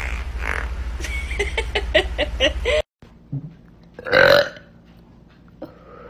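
A woman's gas noises: a rapid run of short pitched sounds over a low hum until a sudden cut, then a single loud belch about four seconds in.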